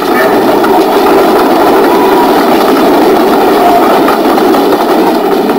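Cartoon sound effect of a train pulling in: a loud, steady, noisy rumble.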